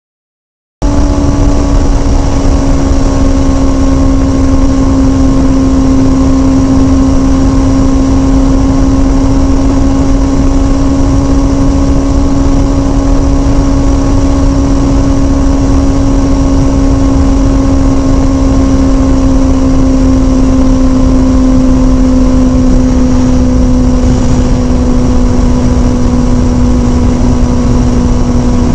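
Kawasaki Ninja sport bike engine running at steady high revs while cruising at highway speed, under constant wind rush. It comes in about a second in, and its pitch sags slightly over the stretch.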